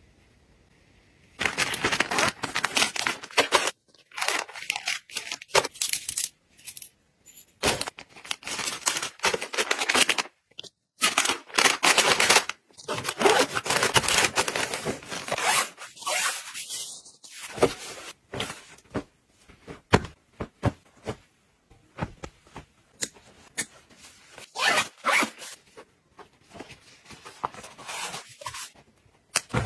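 Close-up rustling and crinkling of plastic packaging, mesh storage pouches and fabric bags being handled and packed, in irregular bursts with short pauses.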